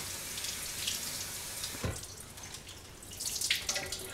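Kitchen faucet running over a head of iceberg lettuce being rinsed in the sink, with a single knock about halfway through.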